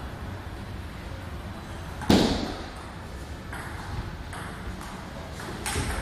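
A single loud, sharp ball strike about two seconds in that rings briefly and fades, followed by a few fainter knocks near the end, over steady low room noise.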